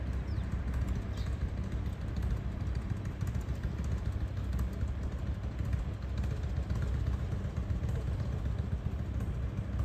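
Two motorcycles idling at a distance, a Harley-Davidson Night Train and a Kawasaki ZRX1200 DAEG fitted with a BEET exhaust, giving a steady, low, uneven rumble with no revving. Wind on the microphone may add to the low rumble.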